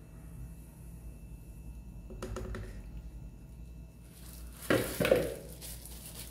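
Quiet kitchen handling as cake batter is poured and scraped from a mixing bowl into an aluminium ring pan, then two knocks close together about four and a half seconds in as the mixing bowl is set down on the countertop. A steady low hum runs underneath.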